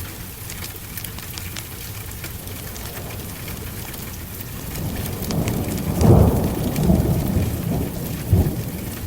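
Steady heavy rain with a roll of thunder: a low rumble swells about five seconds in, is loudest a second later, and rumbles on with a sharper clap near the end.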